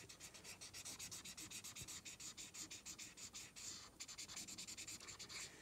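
Faint rubbing of a Crayola felt-tip marker worked back and forth on paper in quick, close strokes, colouring in a dark area.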